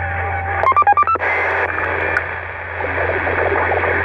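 CB radio receiver playing channel static and hiss over a steady low hum, with a quick run of electronic beeps at stepping pitches about a second in.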